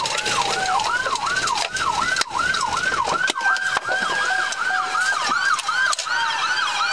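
Police car sirens in yelp mode: a fast whooping rise and fall about three times a second, with a second siren's slower wail sliding down in pitch underneath.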